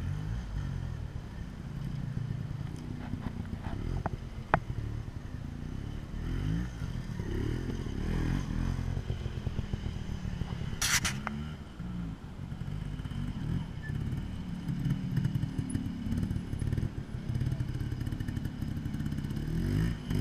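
Trials motorcycle engine running at low revs and blipped up and down as the bike is worked over rocks, with a single sharp click about four and a half seconds in.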